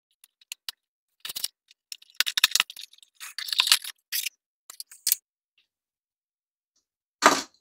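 Unboxing handling of a cardboard blind box and the clear plastic bag holding a small plastic toy figure: scattered clicks and short bursts of crinkling and tearing over the first five seconds, then one more short burst near the end.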